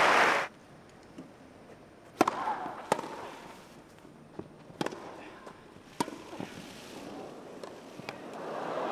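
Tennis ball struck back and forth with rackets in a rally on a grass court: a run of sharp, irregular hits and bounces, the loudest about two, three, five and six seconds in. Crowd noise stops abruptly about half a second in and swells again near the end.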